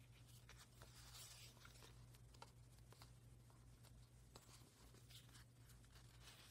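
Faint rustling with scattered light ticks as fabric swatch cards in a sample book are lifted and leafed through by hand, over a steady low hum.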